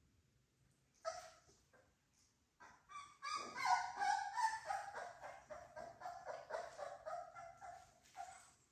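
Three-week-old American Bully puppies yipping and whining: one short yip about a second in, then a rapid run of high, choppy whines and yips from about three seconds in that fades off near the end.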